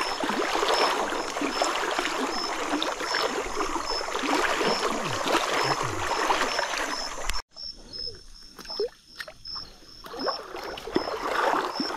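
Water sloshing and splashing as someone moves through shallow river water. About seven seconds in it cuts off abruptly, leaving only faint splashes and clicks. A steady high-pitched pulsing, about two a second, runs underneath.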